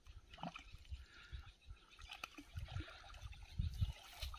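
A hooked fish splashing and thrashing at the water's surface as it is played on a rod, in irregular splashes.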